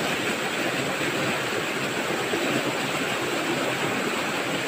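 Steady rush of a small rocky river cascade, the water running strong after rain.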